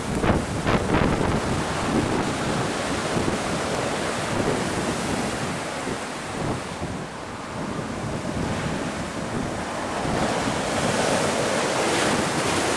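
Gale-force wind battering the microphone over storm-surge waves breaking against the sea wall and seawater rushing across the seafront road. The rush eases in the middle and swells again near the end.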